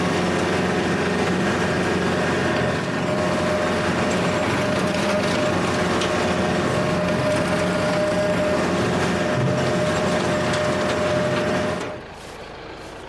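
Kubota L4701 tractor's diesel engine running steadily under load, with the Countyline brush hog rotary cutter spinning as it mows tall grass. The sound drops off sharply about a second before the end.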